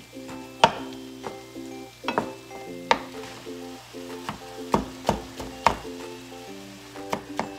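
Ground beef and onions sizzling in a pan while a wooden spatula and a red silicone spatula stir them, knocking and scraping against the pan in a dozen or so sharp clicks. Light background music plays underneath.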